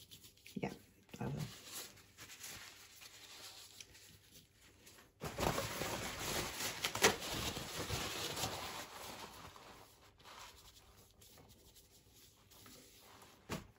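Oil-paint brush scrubbing paint onto paper in a dry, scratchy rustle that starts suddenly about five seconds in and dies away a few seconds later.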